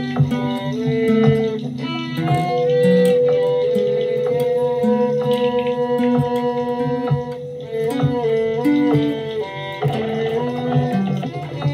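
Acoustic guitar played solo by fingerpicking: single plucked melody notes over lower bass notes, with one note left ringing for several seconds in the middle.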